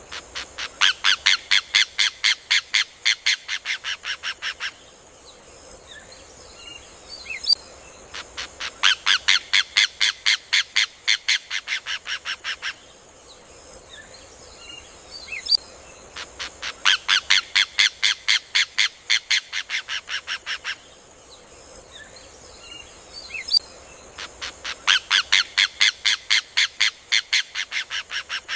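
Rufous hornero (João de Barro) song: a loud, rapid run of repeated notes lasting about four seconds, heard four times about eight seconds apart. Faint scattered calls and a steady high hiss fill the gaps.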